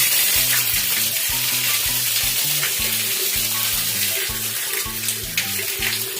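A loud, even hiss like sizzling that slowly fades, over background music with a bass line.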